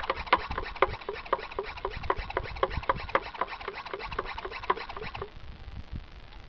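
Hand sprayer of diesel and motor oil sputtering and pulsing at the wand in short squeaky chirps, about four a second, stopping about five seconds in. It is getting little liquid through, which the owner puts down to the sprayer being about empty or plugged.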